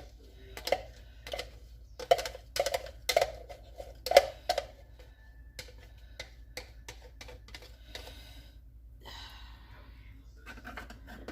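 A spoon knocking and clicking against a roasting pan in quick, irregular strikes, loudest over the first four seconds, then lighter taps and a soft scraping later on as thickener and sauces are stirred into the pot roast.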